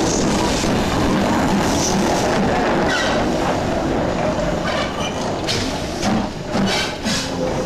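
BR Standard Class 4 2-6-4 tank steam locomotive 80002 moving off along the line, its running noise steady at first, then irregular exhaust chuffs from about three seconds in.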